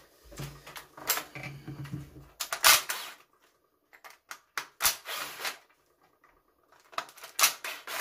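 Screwdriver turning out the plastic housing screws of a Makita DTM50 cordless multi-tool, with several short scraping, clicking bursts and handling knocks, the loudest about two and a half seconds in.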